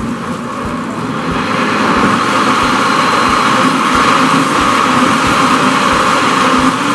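Countertop blender motor switched on and running steadily, mixing a pão de queijo batter of sour cassava starch, milk, oil, egg and grated cheese. It starts abruptly and grows a little louder over the first couple of seconds.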